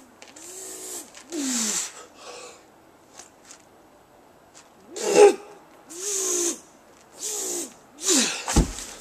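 A man's hard, forceful breathing and straining grunts while he holds a heavy atlas stone at his chest, coming in short bursts with a quieter stretch in the middle. Near the end there is a short, deep thump.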